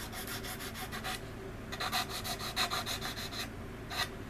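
Hand sanding on a resin scale-model part: quick back-and-forth strokes, about five a second, stopping briefly about a second in, then resuming, with one last stroke near the end.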